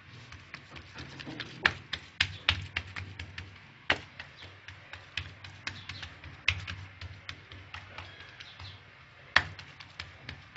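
Oiled hands patting and pressing msemen dough flat on a granite countertop: irregular soft slaps and taps, with one sharper slap near the end.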